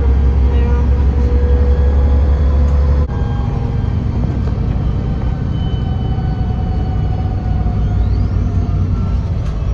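Interior of a city bus driving at highway speed: steady engine and road rumble with faint whining tones over it. The deep rumble drops abruptly about three seconds in.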